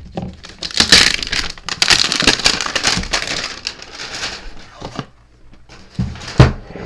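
Plastic shrink wrap being torn and crinkled off a Pokémon card collector tin, loudest for about three seconds from a second in. A sharp knock near the end.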